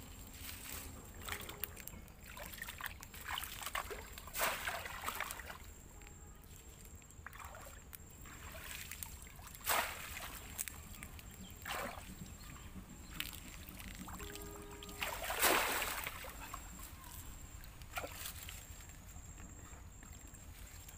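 Water splashing and sloshing as a bamboo polo fish trap is slammed down into shallow water and worked into the mud to pen fish. The splashes come at irregular intervals a few seconds apart, with the loudest about 15 seconds in.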